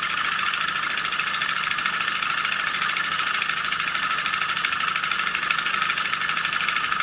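Starpower two-piston gamma-type Stirling engine running on its alcohol burner, with a steady, rapid, high-pitched clatter from its pistons and flywheel linkage.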